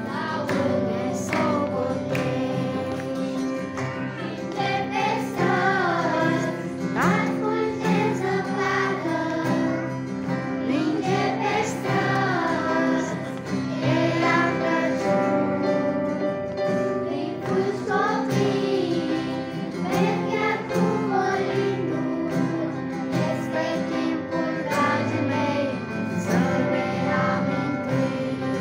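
A children's choir singing a song in unison, with steady instrumental accompaniment under the voices.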